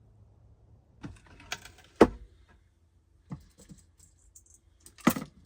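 Scattered clicks and knocks of small objects being handled and set down, with one sharp knock about two seconds in and a few more clacks near the end.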